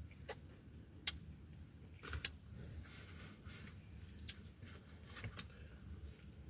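Quiet eating sounds: crisp bites into a pickle spear and wet mouth smacks, with a few sharp clicks and rustles as the foam takeout box is handled, over a low steady rumble.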